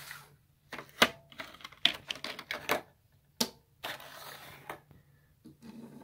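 Clear plastic blister packaging crinkled and clicked in the hands, a string of sharp clicks and crackles with rustling between them.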